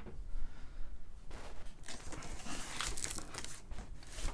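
Cardboard box flaps being pulled open, with rustling, scraping and crinkling of the packaging. It starts a little over a second in, with several sharper scrapes in the middle.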